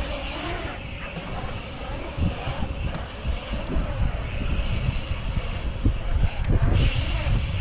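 Bike tyres rolling and carving on a concrete skatepark bowl, heard as a steady low rumble with a few short knocks.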